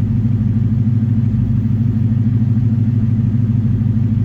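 Ford Coyote 5.0 V8 engine running at a steady speed, its timing chain noise cured after the cam phaser was reassembled straight.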